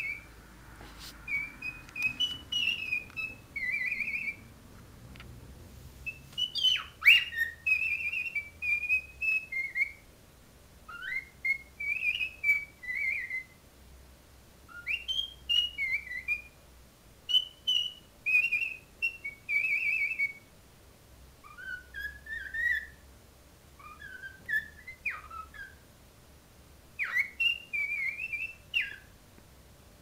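Cockatiel whistling its song: a series of short, warbling whistled phrases with brief pauses between them, including one loud, sharp upward-swooping note about seven seconds in.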